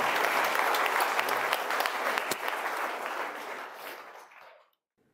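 Audience applauding, a dense patter of many hands clapping that dies away over the last couple of seconds and then cuts off just before the end.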